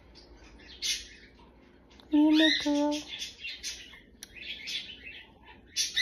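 Cockatiel chattering in a series of short raspy chirps. A person hums two short low notes about two seconds in, louder than the bird.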